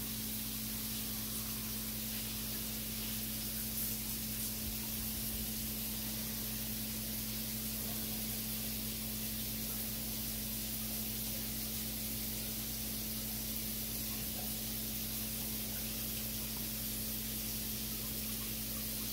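Steady shop background noise: an even hiss with a low, constant electrical hum underneath, with no distinct splashes from the part going into the water.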